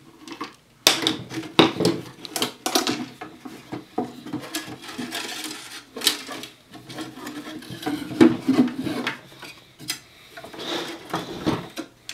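Parts of a Gryphon C-40 band saw being handled by hand as its head and motor assembly is unscrewed and lifted out of the plastic housing: a string of irregular knocks, clatters and rattles of plastic and metal parts.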